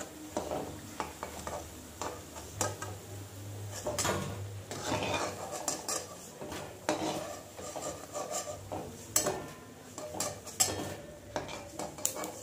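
Flat metal spatula scraping and tapping against a metal karai at irregular intervals as fried prawn chops are lifted out one by one, with hot oil sizzling lightly underneath.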